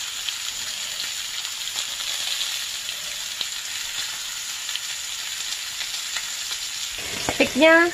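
T-bone steak sizzling steadily on a hot ribbed grill pan, with light crackles, as its fat edge is held upright against the surface to render the fat.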